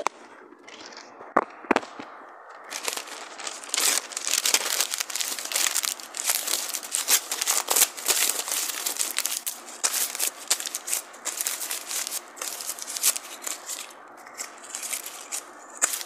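A sheet of notebook paper being torn and crumpled by hand: dense, irregular crackling and ripping from about two and a half seconds in until near the end, with a couple of sharp clicks just before it.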